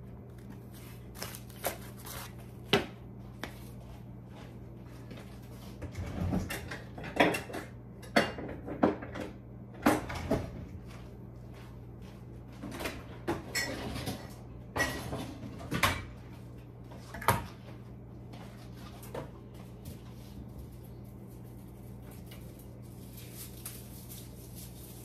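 Kitchen handling noises: scattered knocks and clatters of items being picked up and set down on a tiled counter, and cupboard doors, busiest in the first two-thirds and sparser near the end, over a steady low hum.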